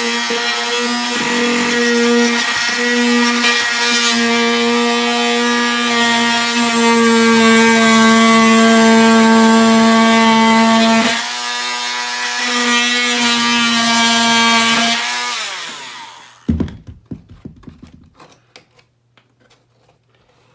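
Handheld Dremel rotary tool running at high speed, trimming a plywood patch with a steady high whine that gets louder as it bites into the wood. About 15 seconds in it is switched off and winds down, followed by a single knock and a few light clicks.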